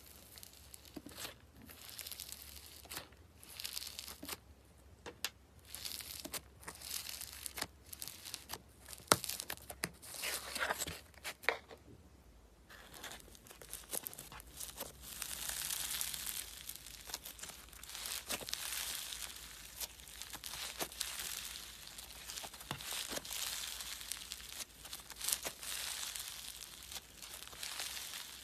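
Slime being squeezed, poked and stretched by hand: sharp clicks and air-bubble pops, then from about twelve seconds in a denser, continuous crackling.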